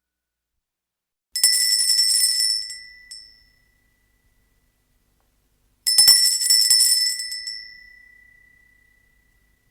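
A small, high-pitched bell rung with quick repeated strokes, twice: a trilling burst about a second in that dies away over about two seconds, then a second burst near the middle that rings out longer.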